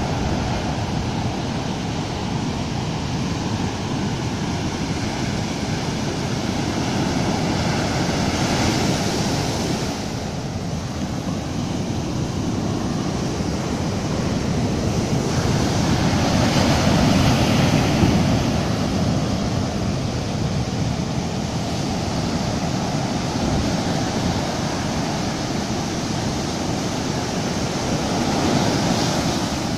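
Sea surf breaking and washing up and back over a sand beach, the swash and backwash of the shore break. It is a continuous rush that swells as waves come in, loudest a little past halfway.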